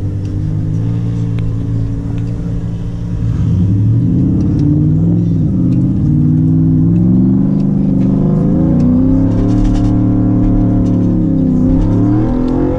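Pickup truck's engine heard from inside the cab while driving a dirt trail, revving up a few seconds in and holding, then dropping and rising again near the end, over road and tyre noise.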